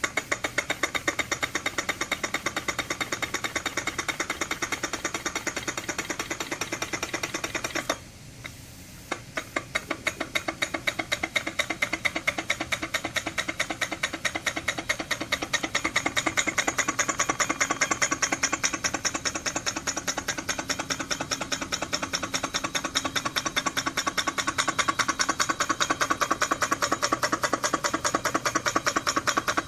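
Homemade single-cylinder model steam engine running, its strokes clicking in a fast, even rhythm. About eight seconds in it stops briefly, then starts again with slower strokes that quickly pick back up to speed.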